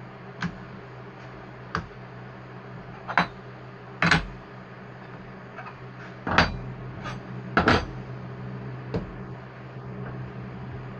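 Steel knife and wooden handle scales handled on a workbench: about eight sharp knocks and clinks at uneven intervals, the loudest in the middle, as they are picked up and moved, over a steady low hum.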